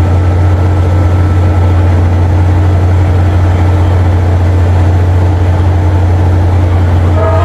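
Steady low rumble of an approaching Amtrak P42DC diesel locomotive, then its air horn starts sounding a chord of several tones near the end.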